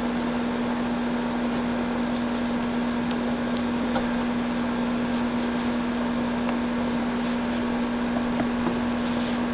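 A machine fan running steadily: a constant hum over an even rush of air. A few faint ticks come from a screwdriver prying at a plastic headlight housing.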